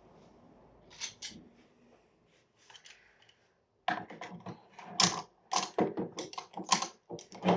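Hard objects being handled and set down, most likely the Dorma TS73 door closers being counted: a couple of clicks about a second in, then from about four seconds a quick irregular run of clacks and knocks.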